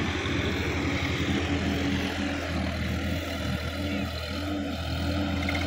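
Tractor diesel engine running steadily at an even speed, with a low, regular throb.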